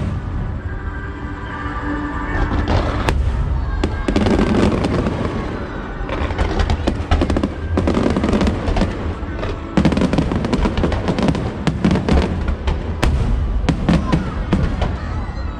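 Fireworks going off, a few sharp bangs at first and then a dense, rapid crackling from about four seconds in, with music playing underneath.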